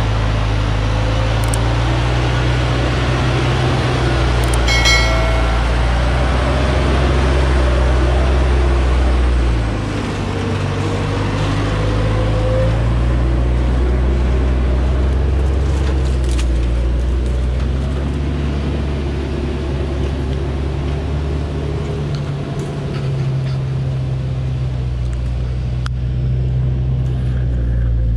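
Diesel engine of a Dongfeng logging truck loaded with acacia logs, running steadily under load at low speed; the engine note eases off twice, around ten seconds and around twenty-two seconds in. A brief high squeal sounds about five seconds in.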